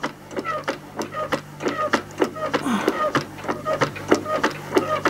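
Plastic snap-together beam engine water pump model working, its mechanism clicking with short squeaks in an even rhythm of about three to four a second.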